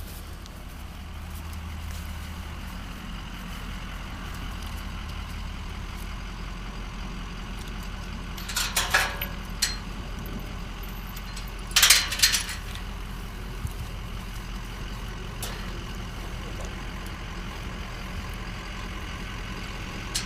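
Truck engine idling steadily, with two short, loud bursts of clattering about nine and twelve seconds in from the steel pipe pasture gate being unlatched and moved.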